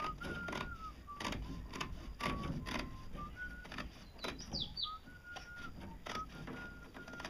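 A person whistling a slow tune in held notes that step between pitches. Under it, fiberglass cloth crinkles and rustles with light taps as it is pressed into the sheet-metal form.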